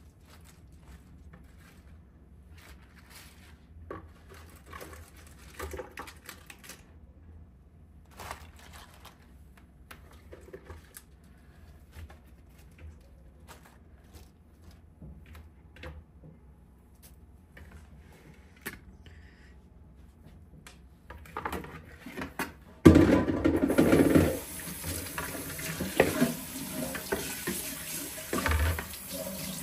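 Soft rustling and light taps as washed greens are handled and spread on a towel. About 23 seconds in, a kitchen tap is turned on and water runs hard into the sink, the loudest sound here.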